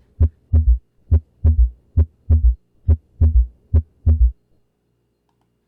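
Recorded heart sounds with a third heart sound (S3, ventricular gallop). Each cycle is a low thud followed by a close pair of thuds: the extra sound comes just after the second heart sound, in early diastole during rapid passive ventricular filling, and in adults it signals pathology. The gallop repeats about five times at just under a second per cycle and stops about four seconds in.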